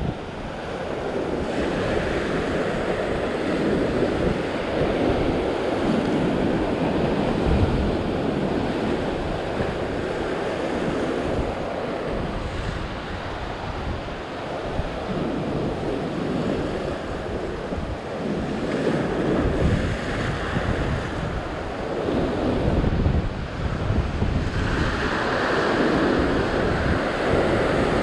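Ocean waves surging and breaking against a rock ledge, the wash swelling and easing every few seconds, with wind buffeting the microphone.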